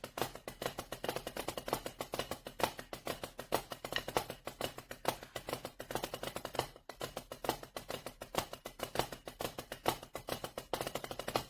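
Drumsticks striking a Donner DTB-1S silicone practice drum pad in a fast, continuous run of dry taps, with a brief pause about seven seconds in.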